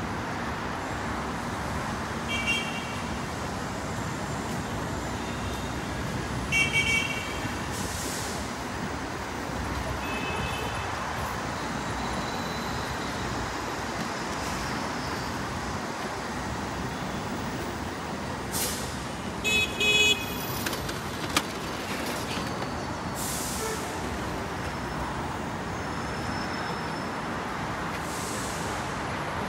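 Steady city street traffic noise, with short high horn beeps sounding several times, the loudest a cluster about two-thirds of the way through.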